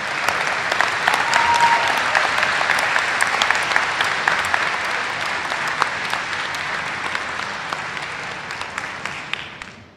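Large seated audience applauding, the clapping dense at first and dying away near the end.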